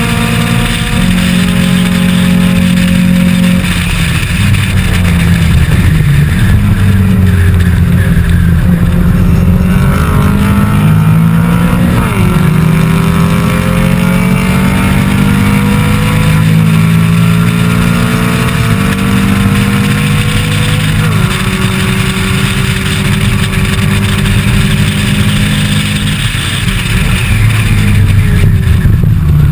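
Onboard sound of a historic saloon race car's engine under hard throttle. Its pitch climbs and drops sharply several times as it shifts up through the gears, then holds steady for a few seconds near the end.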